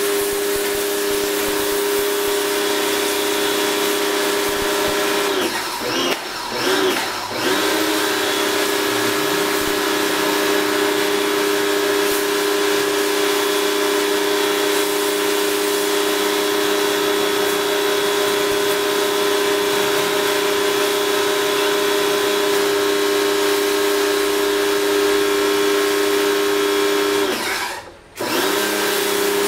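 Electric pressure washer running with its water jet spraying, a steady motor hum with a hiss over it. The motor dips and wavers about six seconds in, and near the end it cuts out for a moment and starts again.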